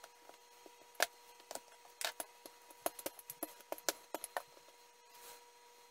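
Light, irregular taps and clicks as pie dough is rolled and pressed out by hand on a floured stainless steel counter, over a faint steady whine.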